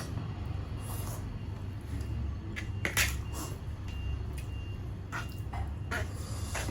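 Close-up eating sounds: chewing with sharp, wet mouth clicks and lip smacks every half second to two seconds, over a low steady hum.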